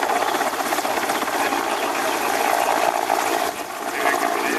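Mil Mi-17 helicopter in flight: the rapid beat of its five-blade main rotor and the noise of its twin turboshaft engines, steady apart from a brief dip about three and a half seconds in.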